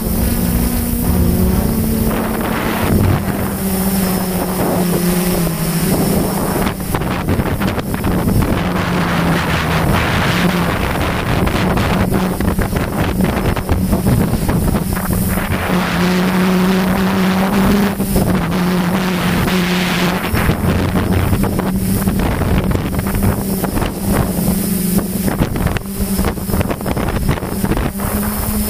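Motors and propellers of a Xugong V2 multirotor drone humming steadily, wavering slightly in pitch, heard from its onboard camera during a slow, low hover. Wind buffets the microphone in gusts about a third and two-thirds of the way through.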